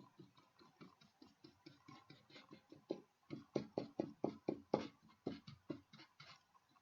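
Paintbrush dabbing and stroking paint onto a craft piece: a quick, uneven run of soft ticks, about five or six a second, louder in the middle.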